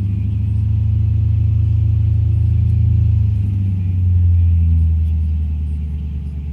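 Car engine running rough and uneven, its revs swelling and sagging with a surge about four seconds in, then falling away as it tries to stall. The owner suspects a misfire.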